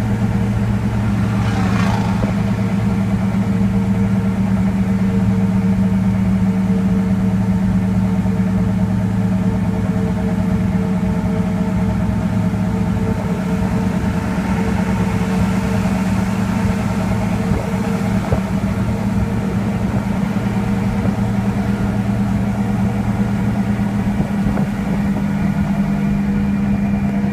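GM 6.5-litre turbo-diesel V8 in a heavily loaded Chevrolet C3500HD, pulling steadily up a grade in third gear with the torque converter locked. Heard from inside the cab as a constant, even engine drone under load.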